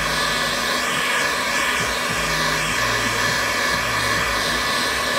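Electric heat gun blowing steadily, with a steady high whine over the rush of air, drying fresh paint on a slide sandal.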